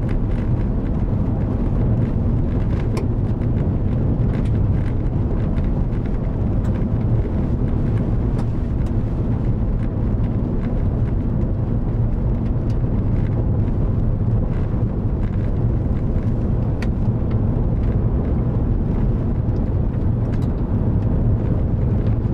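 Chevrolet Suburban driving steadily on a gravel road, heard from inside the cab: a constant low rumble of tyres and engine, with a few scattered light clicks.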